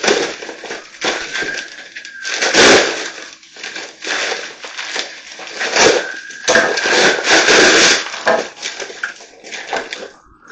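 A drywall knife scraping against a metal mud pan in repeated rasping strokes of varying length, scraping out the last of the joint compound.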